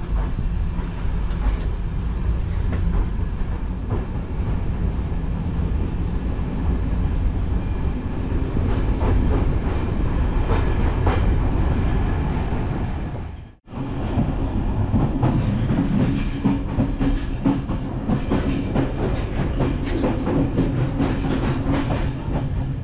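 Passenger train coach rolling along the track: a steady low rumble with scattered wheel clicks. It cuts off abruptly about two-thirds of the way through, then returns louder with dense rail clatter and rattling, as heard in the vestibule by the gangway doors between coaches.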